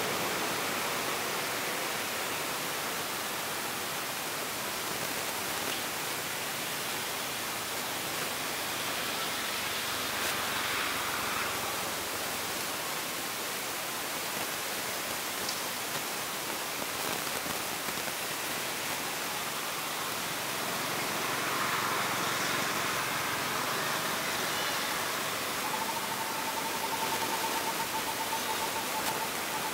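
Steady outdoor hiss of noise with no clear source, and near the end a thin, pulsing buzz-like tone lasting a few seconds.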